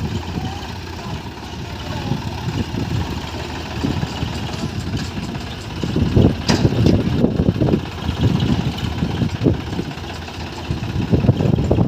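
Diesel engine of heavy earthmoving machinery running, growing louder about six seconds in, with a brief sharp knock around then.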